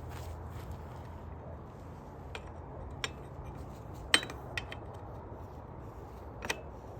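Scattered light metal clicks and clinks, about six in all, the loudest a little past four seconds in, as a pedal is fitted and threaded onto a bicycle's crank arm.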